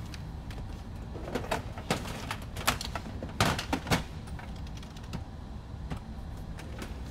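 Desk handling noise: a run of sharp clicks and knocks between about one and four seconds in, the loudest near the end of the run, over a steady low hum.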